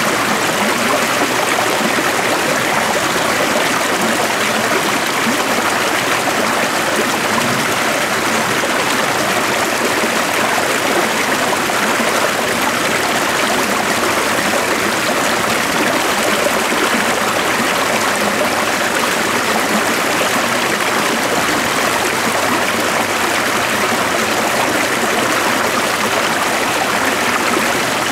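A stream flowing, a steady, even rush of water that does not change.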